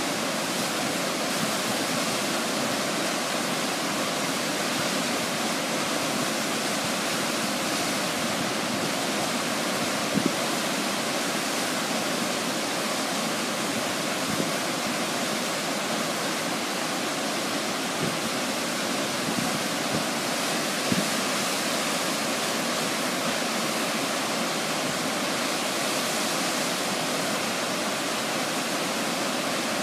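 Shell Falls, a waterfall on Shell Creek in heavy flow: a steady rushing roar of whitewater plunging into the gorge.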